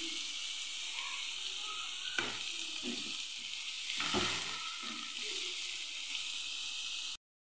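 Chopped onions sizzling steadily in hot oil in a nonstick frying pan as green chillies and curry leaves are stirred in, with a few scrapes and knocks of a wooden spatula against the pan. The sound cuts off abruptly about seven seconds in.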